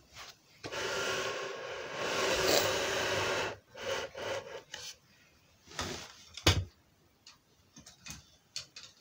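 Plastic Plarail toy track pieces and supports being handled and laid on carpet: a scraping rub for about three seconds, then scattered clacks and a sharp knock about six and a half seconds in.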